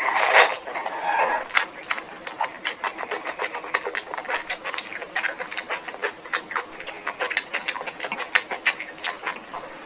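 Close-miked chewing of food: a dense run of wet mouth clicks and smacks, several a second, opening with a louder noisy burst.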